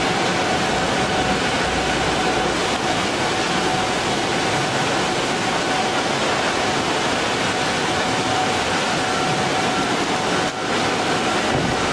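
Steady loud machinery noise from a running plastic-flake color sorting line, a broad rushing hiss with a faint steady whine over it.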